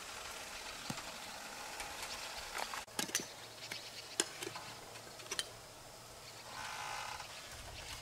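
Freshwater mussels handled in shallow river water: light water sloshing and a few sharp shell clicks, mostly between about three and five and a half seconds in.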